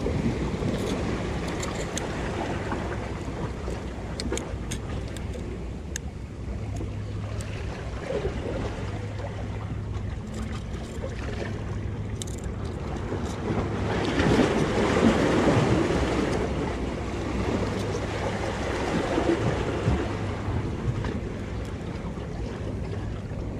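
Ocean waves washing against jetty rocks, with wind buffeting the microphone; the surf swells loudest about fourteen seconds in and again near nineteen seconds. Faint clicks come and go over it.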